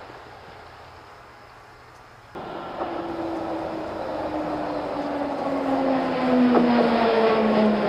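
Streetcar running on rails. About two seconds in the sound jumps louder, and a motor whine then falls slowly in pitch as the car slows.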